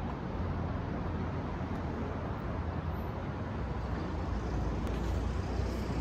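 Steady street noise dominated by a low traffic rumble, with no distinct events.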